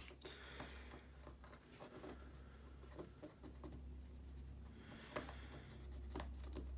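Cotton bud rubbing and scrubbing inside the plastic motor bogie housing of a Lima model locomotive: faint, irregular scratching with small ticks, over a low steady hum.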